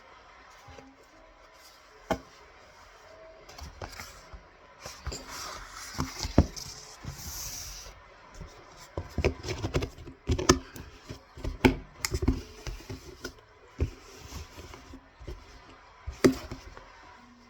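A person chewing dry cornstarch: irregular crunches and sharp clicks, with a stretch of hissy crumbling noise part way through.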